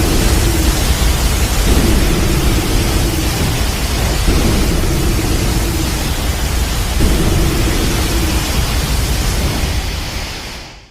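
Explosion sound effect: a loud, sustained rush of noise over a deep rumble, slowly dying away and fading out near the end.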